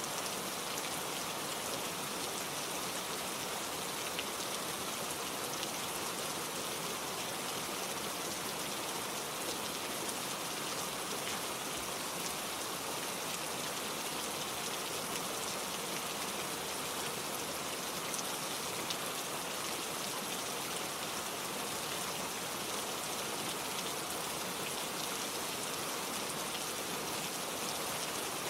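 Steady, gentle rain falling, a constant even hiss with faint scattered drop ticks and no thunder.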